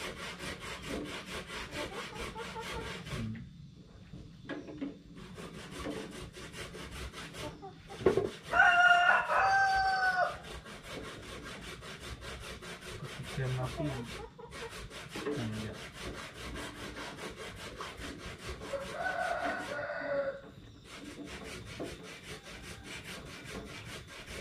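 Continual rhythmic scraping of a spoon stirring in a pan, with a rooster crowing loudly about eight seconds in, and a shorter, fainter fowl call around twenty seconds in.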